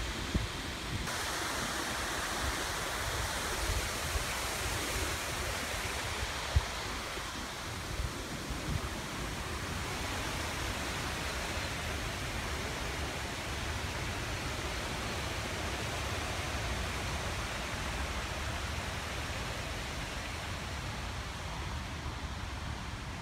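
Steady rushing outdoor noise with a low, unsteady rumble, broken by a few brief knocks, the sharpest about six and a half seconds in.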